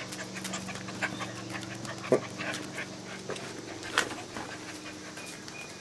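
Golden retriever puppies panting and scuffling as they play-wrestle, with sharp knocks throughout, the loudest about two seconds in and another about four seconds in.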